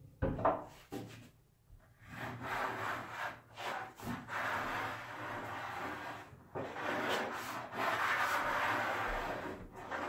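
Small hand radius (corner-rounding) plane shaving along the sharp edge of a wooden cart top: a few short strokes, then three longer passes of two to three seconds each, rounding over the corner.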